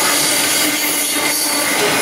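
Freight train's boxcars rolling past close by: a steady, loud rush of steel wheels on rail with a constant tone running through it.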